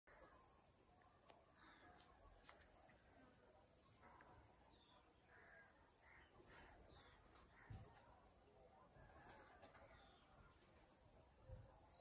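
Near silence: faint outdoor ambience with a steady high-pitched whine that breaks off briefly a few times, and scattered distant bird calls.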